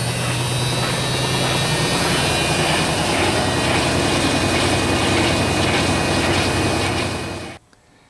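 GE top-loading washing machine in its spin cycle, the drive motor and basket turning at high speed with a steady low hum over a rushing noise. It drops away near the end.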